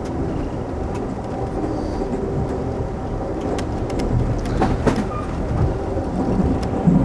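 Amtrak passenger car riding the rails: a steady low rumble with scattered clicks and rattles, busiest about two thirds of the way through.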